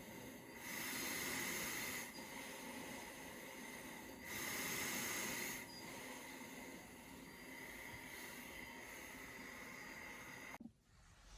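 Travel CPAP machine blowing air through a ResMed P10 nasal-pillows mask: a steady airy hiss that swells twice for about a second and a half, as with breaths through the mask. It drops away suddenly near the end.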